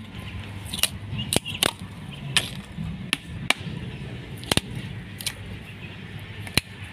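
Hand-held coconut shell opening tool prying the hard shell off a husked coconut. It gives a string of about nine sharp, irregular cracks and snaps as pieces of shell break away from the meat of a fairly young coconut.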